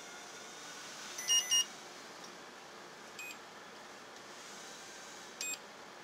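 Tajima embroidery machine control panel beeping as its keys are pressed: two quick high beeps about a second in, a fainter one midway and another near the end, over a steady background hiss.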